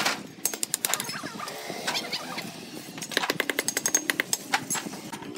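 Masons' steel trowels tapping and scraping on bricks and mortar as bricks are set and trimmed: scattered sharp clicks, then a fast run of taps about three seconds in.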